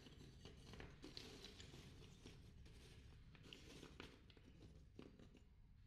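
Near silence: faint room tone with a few faint clicks, the scraping of the charcoal lumps having been muted.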